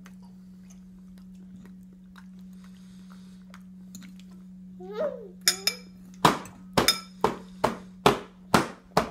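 Toddler slapping her open hand on a plastic high-chair tray, a run of about seven sharp smacks at roughly two a second in the last three seconds.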